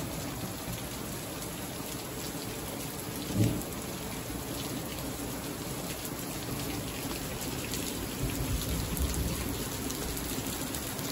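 Heavy rain pouring down steadily, with low rumbles of thunder and a brief low thump about three and a half seconds in.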